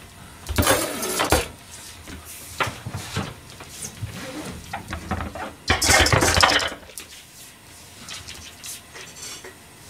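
Rustling and clattering as a plastic-wrapped food pack and other things are handled and set down on a kitchen counter. There are two louder bursts, about half a second in and about six seconds in, with small knocks in between.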